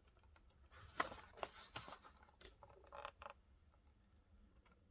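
Faint handling noise of a blister-carded Hot Wheels die-cast car: soft scrapes, rustles and light taps of plastic and card. The loudest comes about a second in and another cluster about three seconds in.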